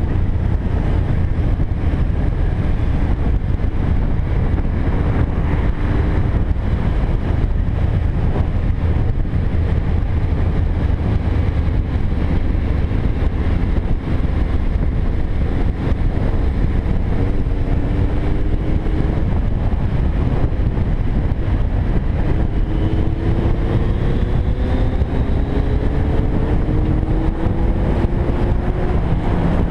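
Motorcycle engine running under way, with wind rushing over the microphone. In the second half the engine note climbs several times in rising steps as the bike accelerates through the gears.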